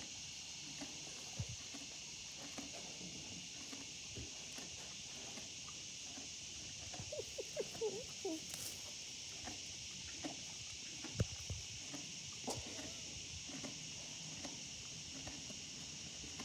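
A horse pulling at and chewing a hay bale: crunching and rustling of dry hay, busiest about halfway through, with an occasional soft thump. A steady chorus of insects trills underneath.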